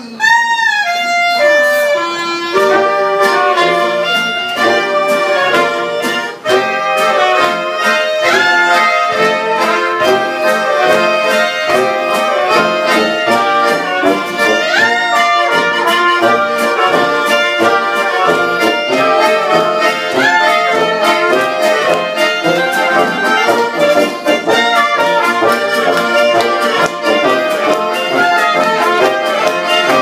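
Live oompah band of clarinets, trumpet, tuba, accordion and acoustic guitar playing a brisk German folk tune. It opens with a short rising-and-falling wail and a falling run of notes, then settles into a steady beat.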